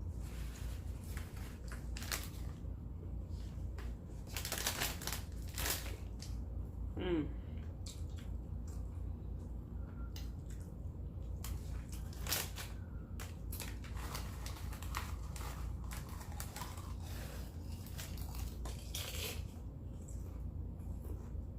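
Close-up eating sounds: irregular wet mouth clicks, crunches and crinkles from chewing a burger, coming at uneven intervals over a steady low hum.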